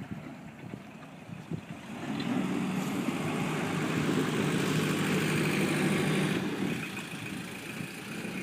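Cygnus DS 25 creel boat's engine running steadily. It grows louder about two seconds in and eases back somewhat near the end.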